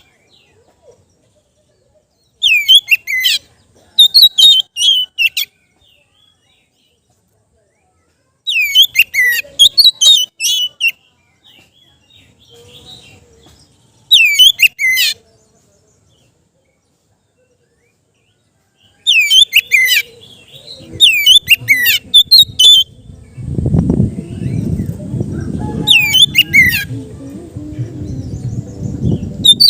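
Oriental magpie-robin (kacer) singing: loud bursts of rapid, sweeping whistled phrases, about half a dozen, separated by silent pauses. Near the end a loud low rumbling noise comes in under the song.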